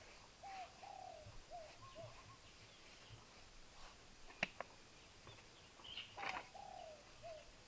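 Faint bird call: a phrase of four short, low notes, given twice about six seconds apart. About halfway through there is a sharp click, and a brief rustle comes just before the second phrase.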